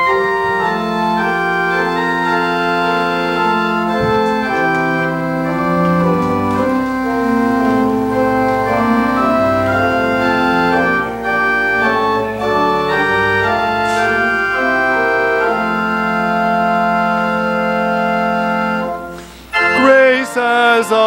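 Organ playing a hymn introduction in slow, sustained chords. Near the end it breaks off briefly, then a voice begins singing the first verse with the organ.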